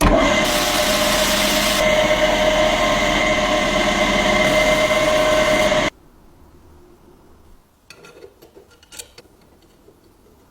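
A power tool running steadily for about six seconds, a loud hiss with a few held whining tones, then cutting off abruptly. A few faint light clicks follow.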